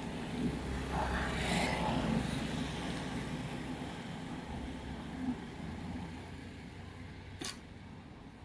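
Motor of an automatic sliding gate running as the gate slides open, a steady low hum, with a brief rushing noise about a second in and a sharp click near the end.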